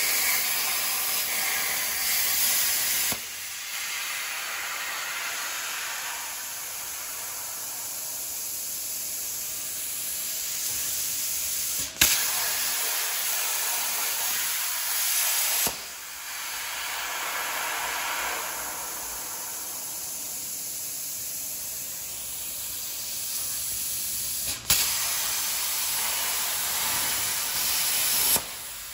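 Air plasma cutting torch on a CNC gantry cutting steel plate, with a steady loud hiss of arc and air. Two sharp cracks come about 12 and 25 seconds in, as the arc strikes again for a new cut, and each is followed by a few seconds of louder hissing.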